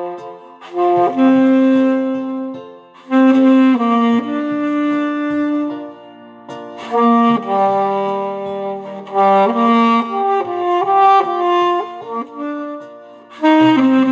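Alto saxophone playing a lyrical melody of held notes in phrases of a few seconds, with short breaks for breath between them, over a backing accompaniment with a bass line.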